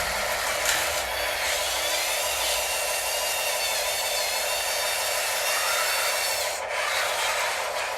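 Small electric motors and hydraulic pumps of radio-controlled construction machines whining steadily with a rasping, grinding edge, the pitch wavering slightly; the noise dips briefly near the end.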